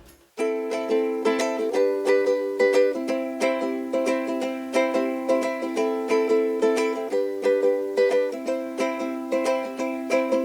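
Ukulele strummed in a steady rhythm, the chords changing every second or so, starting after a brief gap of near silence.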